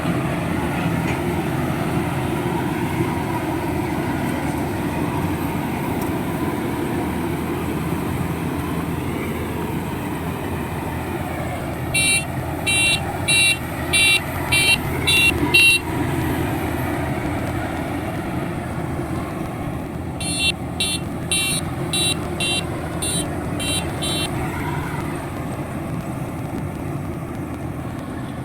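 Diesel farm-machinery engine running steadily, with two runs of rapid repeated horn toots, about two a second: one around the middle and another a few seconds later.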